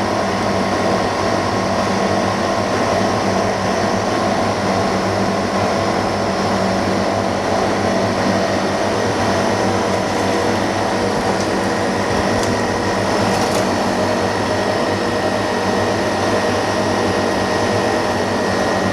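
Steady electric motor and fan hum, with several constant tones over an even whir, unchanging throughout.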